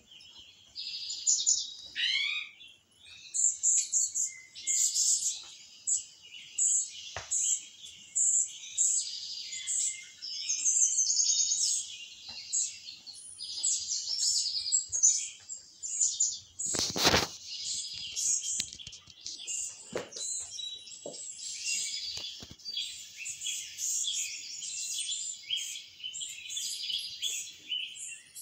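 Small birds chirping in quick, busy calls, played through a television's speakers; a single sharp knock past the halfway point.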